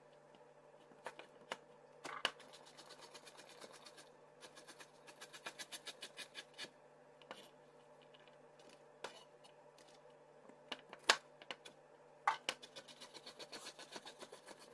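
Chef's knife chopping peeled carrots on a plastic cutting board: runs of quick, even chops, about five a second, broken by pauses and a few single sharper knocks.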